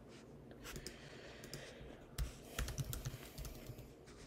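Faint computer keyboard keystrokes: a scattering of irregular taps and clicks, bunched together about two to three and a half seconds in.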